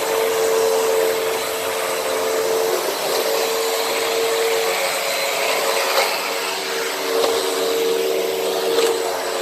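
Hoover WindTunnel upright vacuum cleaner running steadily on a rug, a constant motor whine over the rush of air, with a couple of sharp clicks about six seconds in and near the end.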